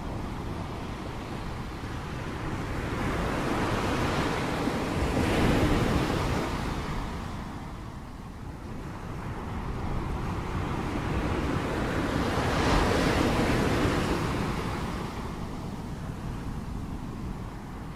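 Ocean surf: waves breaking and washing in, swelling twice, about five seconds in and again about thirteen seconds in, and easing back between.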